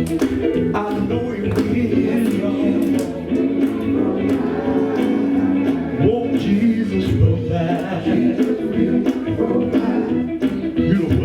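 Live gospel music: a band with drums playing and singers performing a gospel song, amplified through a PA.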